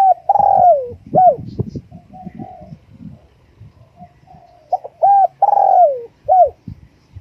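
Spotted dove cooing: two phrases, one at the start and one about five seconds in, each a short note, a longer falling note, then a short note. Faint high chirps from other birds sound between them.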